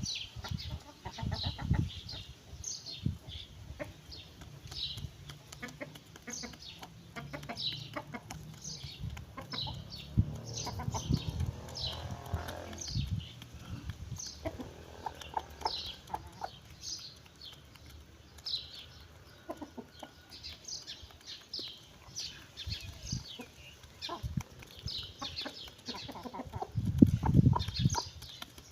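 Chickens and a rooster feeding, with soft clucks and many sharp pecking taps. Short, high, falling chirps repeat about once a second throughout, and a few louder low thumps come near the end.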